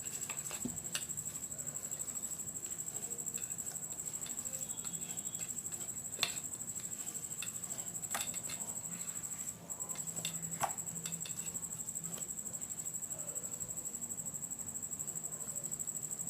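Maida dough being kneaded by hand: soft squishing and patting with a few light knocks scattered through, over a steady high-pitched trill.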